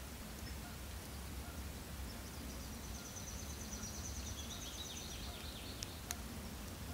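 A small songbird singing a rapid, high trill for about three seconds, trailing into a few lower notes, over a steady low rumble; a sharp click near the end.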